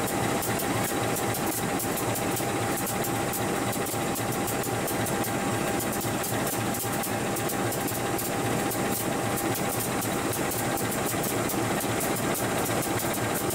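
Engine of a railway work train running steadily at idle: a constant hum with a thin steady whine over it.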